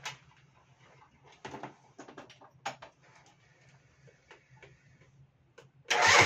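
Small clicks and knocks of handling over a faint low hum. Near the end the scooter's electric starter suddenly begins cranking its 50cc two-stroke engine, loud, on a test start after a carburettor adjustment.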